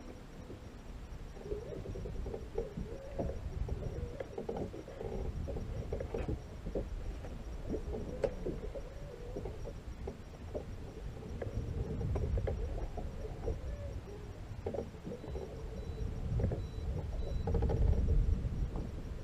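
Low, uneven rumble of water and wind around a small boat, with a faint wavering hum and scattered light knocks.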